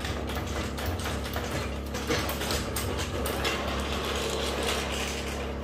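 Floor jack being worked and moved under the car: a dense, rapid run of metallic clicks and rattles that stops near the end.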